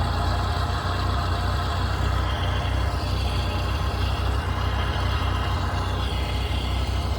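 Vehicle engine idling steadily with the clutch released, carrying a steady noise from a swapped-in manual transmission that goes away when the clutch is pressed. It has been put down to a pilot bearing or an input shaft bearing, but the owner does not know which.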